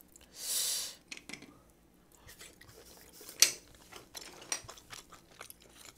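Tableware and eating sounds: a short breathy hiss near the start, then light clicks as chopsticks and grilled abalone shells are handled, with one sharper clack about three and a half seconds in.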